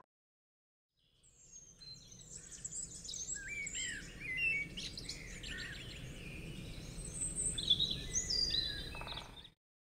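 Birds chirping and singing, many short calls overlapping over a faint outdoor background hiss. It starts after a second or so of silence and cuts off suddenly near the end.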